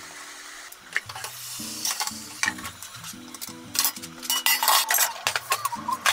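Clicks, taps and clatter of kitchen work: a knife on a wooden cutting board, then dishes and a tray being handled, with the loudest knocks in the second half. Background music plays under it.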